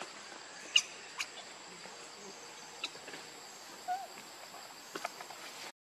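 Outdoor ambience with a steady high insect drone. A few sharp clicks sound through it, the loudest just under a second in, and a short faint chirp comes about four seconds in. The sound cuts out just before the end.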